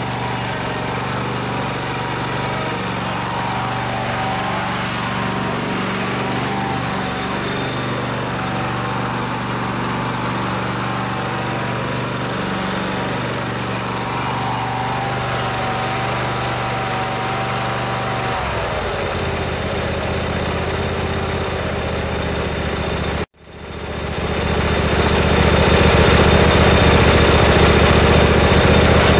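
Truck engine and road noise heard from inside the cab while driving, a steady drone whose pitch drops about 18 seconds in as the engine slows. The sound cuts off abruptly about 23 seconds in, and a louder steady drone fades in.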